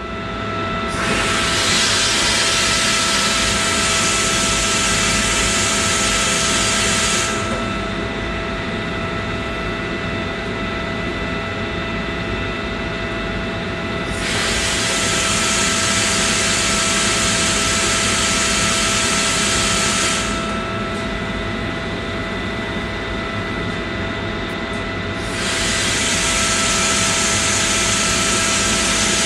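Compressed air hissing out from under Hovair air casters as they float a loaded shop gondola. The hiss comes on about a second in, cuts off after about six seconds, and twice more comes back for about six seconds at a time. A steady machine hum runs beneath it throughout.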